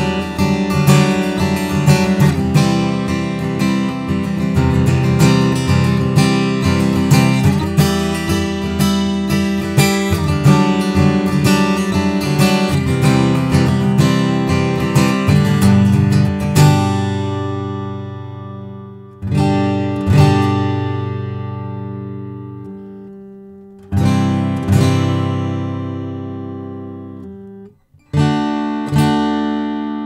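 Taylor GA 12-fret acoustic guitar with a sinker redwood top and Macassar ebony back and sides, played fingerstyle. A busy picked passage runs for about half the time, then gives way to a handful of slow chords, each left to ring out and fade.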